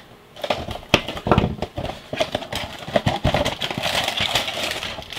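A small cardboard box being cut open with a folding knife and then handled, the box tipped to spill out its contents: irregular knocks and clicks of cardboard with scraping and rustling.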